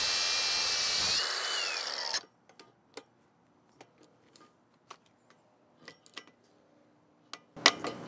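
4.5-inch cordless angle grinder cutting through a bike lock, its whine rising and then falling, for about two seconds before stopping abruptly. Then scattered faint clicks, and a few sharp knocks near the end.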